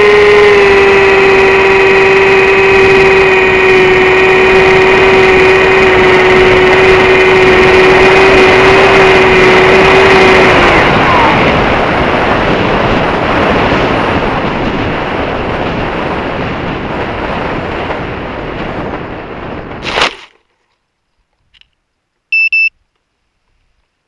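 XUAV Skysurfer's electric motor and propeller running with a steady whine over rushing wind on the airframe; about 11 seconds in the motor cuts and only the wind noise remains, fading as the plane glides down. About 20 seconds in a sharp thud as it lands in the crop, then near silence broken by a short electronic beep.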